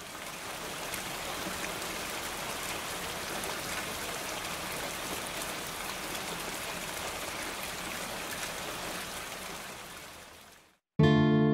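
Steady rain, fading away about ten and a half seconds in. Just before the end a strummed acoustic guitar chord starts.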